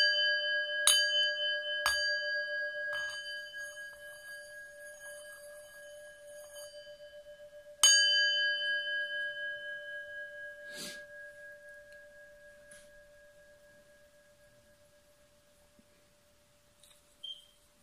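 Singing bowl struck with a wooden mallet, twice in the first two seconds and once more about eight seconds in, each strike leaving a clear ringing tone that wavers gently and dies away slowly. There is a faint knock near eleven seconds in.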